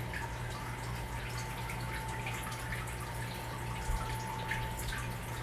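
Fish tank water trickling and dripping steadily, over a constant low hum.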